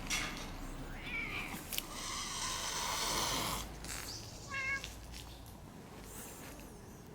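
Park cats vocalising during a territorial standoff: a short call about a second in, a longer hiss-like rush of noise, then another brief meow-like call at about four and a half seconds.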